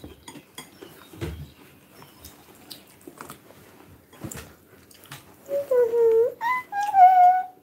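Light clicks and taps of chopsticks and utensils on bowls during a meal, with chewing. About five and a half seconds in come a few short, high-pitched vocal calls that bend in pitch.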